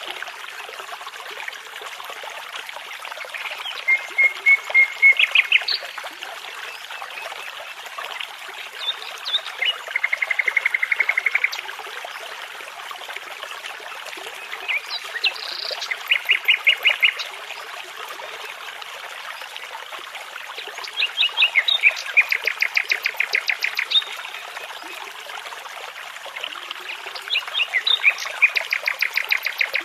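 A songbird singing in short phrases every few seconds, made of quickly repeated notes and fast trills, over the steady rushing of a babbling brook.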